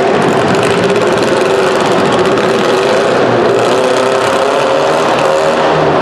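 Engines of several compact demolition derby cars running and revving at once, a loud, steady mass of engine noise with pitches wavering up and down.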